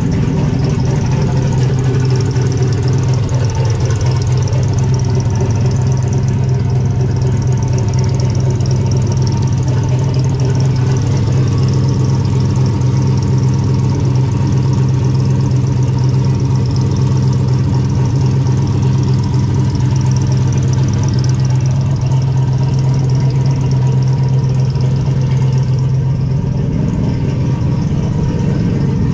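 Turbocharged car engine idling steadily, just started after sitting for a week. Over it is a steady whine from the power steering pump, which sounds like it's about to implode on itself.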